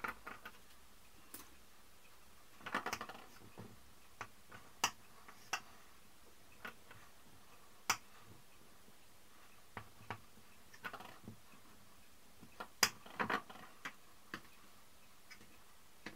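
Faint, irregular small clicks, taps and short scrapes of hands and a thin tool handling figurines and working over a moulded slab on a tabletop. There are brief clusters of scraping about three seconds in and again near thirteen seconds.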